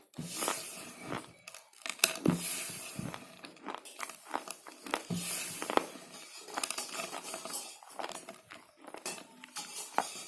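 Slate pencils being bitten and chewed: a close, irregular run of sharp crunches and gritty crackling.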